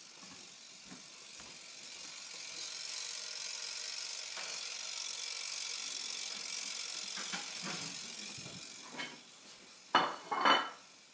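Toaster oven's timer ticking steadily while it toasts, louder in the middle as the microphone comes close. A few loud knocks near the end.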